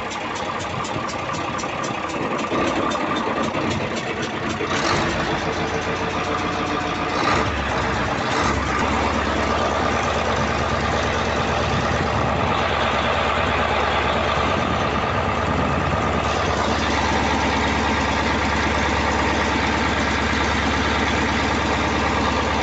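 Mitsubishi 8DC V8 diesel engine of a 15-ton boat running steadily. There are a few sharp knocks about five to eight seconds in, after which a deeper low hum sets in and holds.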